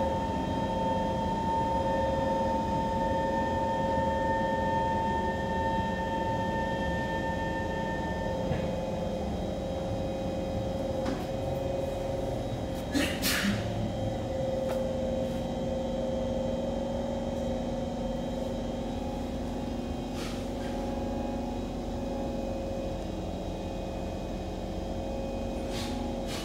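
Cabin of a Kawasaki C151 MRT train: a steady rumble under steady electrical whines, the higher of which stop about eight seconds in. A short sharp clack comes about halfway through.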